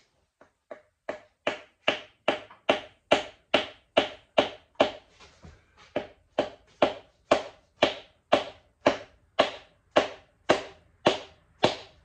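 Rubber mallet tapping steadily on a Yamaha 9.9 outboard's powerhead, about two and a half blows a second, two light taps first and then harder blows, to work a stuck part loose from the block.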